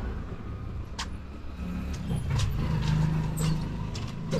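Vehicle engine running in street traffic, its note rising and holding through the middle and dropping near the end, over a low road rumble with a few sharp clicks.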